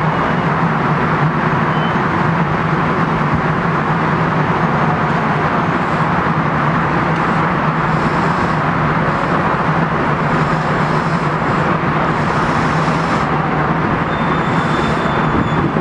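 Steady, loud vehicle noise with a constant low hum and no change in level throughout.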